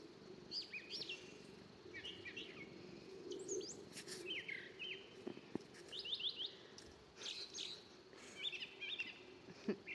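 Birds chirping: many short, high calls and quick little glides come one after another, some in fast runs of three or four notes, over a faint low steady hum.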